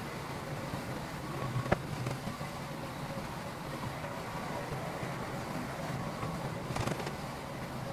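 Diesel engine of heavy earthmoving machinery running steadily, with a sharp clank about two seconds in and another knock near the end.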